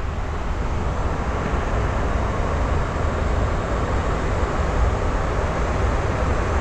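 Steady flight-deck noise of an Airbus A330 in flight: an even rushing noise over a strong low rumble.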